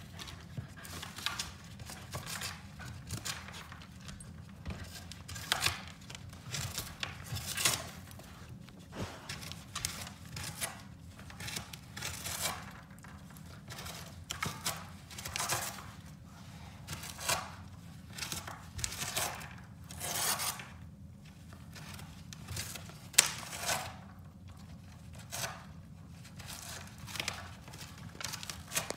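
A corgi chewing and tearing at a sheet of cardboard: a long string of short ripping and crunching sounds, roughly one every half second to a second, with brief pauses between bites.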